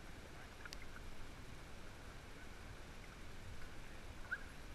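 Faint water lapping and sloshing against a kayak, with an uneven low rumble. A couple of short faint high chirps come through, one near the start and one near the end.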